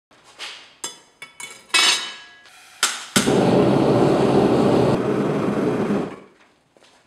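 A few light metal clinks and knocks, then a gas forge's burner running loud and steady for about three seconds, heating a steel plate, before fading out near the end.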